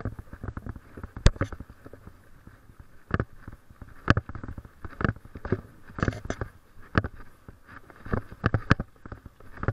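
A person's footsteps while walking a small dog on a leash, heard as irregular sharp knocks about once a second. Rubbing and handling noise from the leash and the hand-held camera fills the gaps between them.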